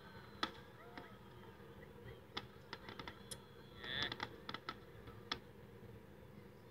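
Fireworks bursting: a quiet, irregular scatter of sharp pops and cracks, about a dozen, bunched most thickly in the middle.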